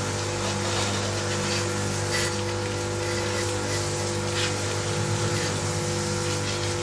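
Pressure washer running with a steady motor hum while its water jet hisses against an air conditioner unit, with brief flares in the spray.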